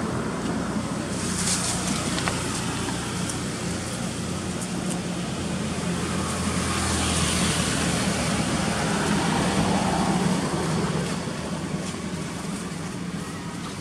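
Steady motor-vehicle traffic noise with a low engine hum, swelling about seven to ten seconds in as a vehicle passes.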